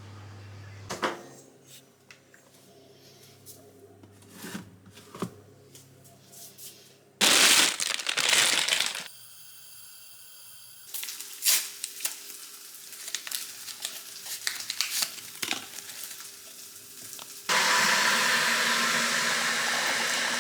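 Kitchen handling sounds, with scattered clicks and knocks and a loud rush of noise partway through. About seventeen seconds in, food goes into a hot pan and sizzles steadily and loudly.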